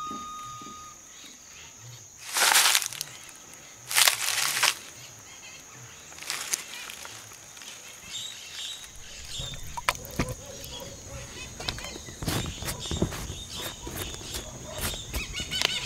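Rural outdoor ambience: a steady high-pitched insect trill, two loud rushing whooshes a few seconds in, then scattered clicks and knocks.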